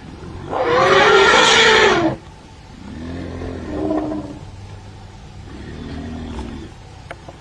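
Elephants calling: one loud call starting about half a second in and lasting about a second and a half, then two lower, quieter calls of about a second each.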